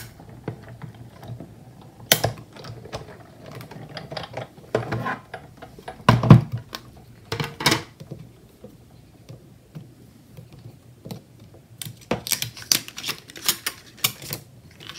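A Sizzix Big Shot die-cutting machine run by hand crank, then its clear cutting plates, magnetic platform and thin metal dies handled and set down: a string of plastic clicks and clacks with the loudest knock about six seconds in and a quick run of clicks near the end as cut paper shapes are popped out of the dies.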